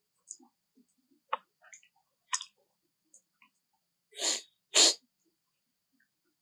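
Macaques grooming at close range: scattered soft clicks and smacks, then two short sneeze-like snorts about half a second apart near the end, the second the louder.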